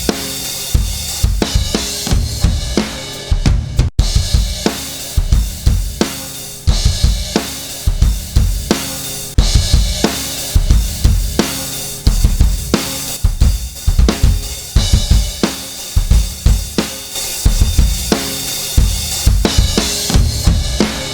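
Drum-heavy music with kick drum, snare, cymbals and hi-hat keeping a steady beat, played through the KIIVE XTMax compressor plugin to demonstrate its dry-wet mix control for parallel compression. There is a very brief dropout about four seconds in.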